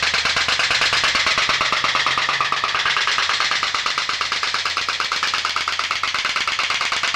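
Diaphragm-type pop-pop (putt-putt) boat engine with an aluminium diaphragm running hard: a loud, steady, fast clatter of many pops a second.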